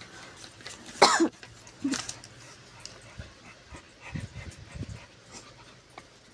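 A single cough about a second in, then a few soft low grunts from the dogs lying on the floor.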